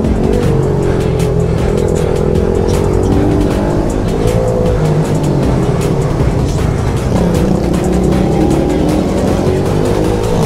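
Pit bike engine running under way, its pitch rising and falling as the throttle is opened and closed.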